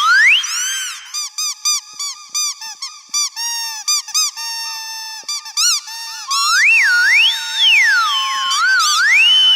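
High squeaks meant to excite dogs. One squeak glides up and down in pitch at the start, then a run of short, quick squeaks lasts about five seconds, then long squeaks sweep up and down in pitch again.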